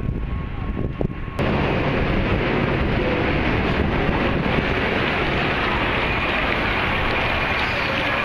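Wind buffeting the microphone with a few knocks, then about a second and a half in the sound changes abruptly to a steady rush of fountain water pouring down a glass wall into a pool.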